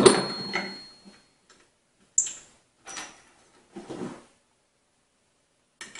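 Metal desk-clamp parts of a monitor arm knocking on a wooden table as they are handled: a sharp knock at the start with a thin metallic ring lasting about a second and a half, then three lighter clinks and knocks a second or so apart.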